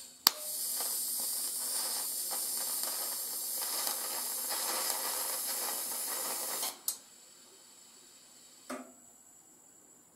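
TIG welding arc on cast iron, fed with a copper-wrapped stainless filler rod, hissing steadily for about six and a half seconds. It starts with a sharp click as the arc strikes and then cuts off.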